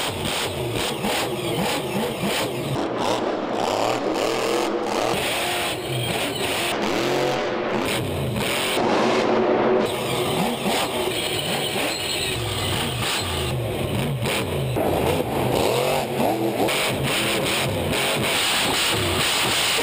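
Grave Digger monster truck's supercharged V8 engine revving hard and repeatedly, its pitch rising and falling again and again as it is driven through a freestyle run.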